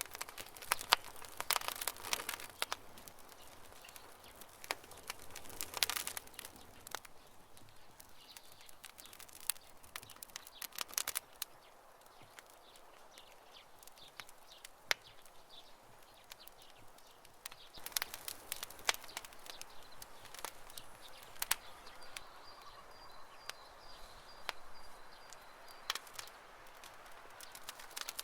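Campfire crackling, with sharp irregular pops and snaps of burning wood coming in clusters. A faint high chirping trill repeats in the last few seconds.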